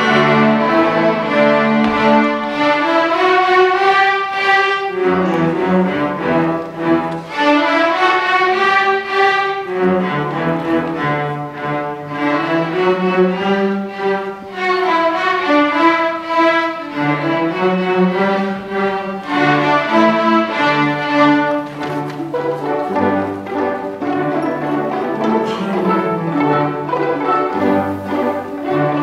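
School string orchestra playing: violins and cellos bowing a melody that rises and falls in repeated phrases over held low notes.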